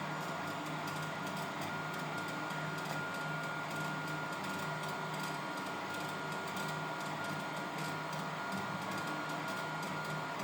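3D printer running a print: a steady high whine with lower motor tones that shift every second or so as the motors move.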